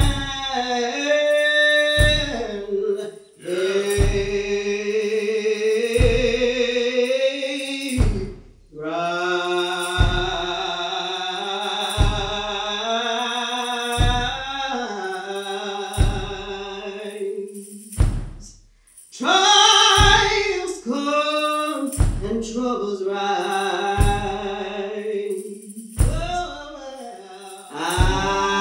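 Slow, drawn-out gospel hymn singing in the old metered-hymn style, voices holding long notes, over a heavy thump about every two seconds that keeps time like congregational foot stomps.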